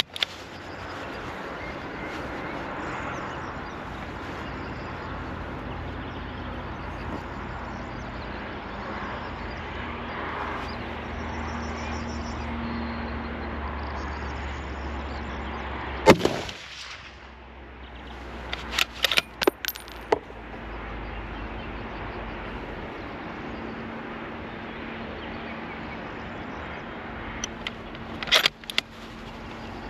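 A single shot from a Tikka T3X TAC A1 bolt-action rifle in .308 about 16 seconds in, the loudest sound by far. A few seconds later comes a quick run of sharp metallic clicks, with another short cluster near the end, over a steady background hiss.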